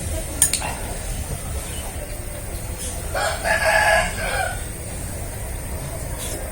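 A rooster crowing once, a call of just over a second starting about three seconds in.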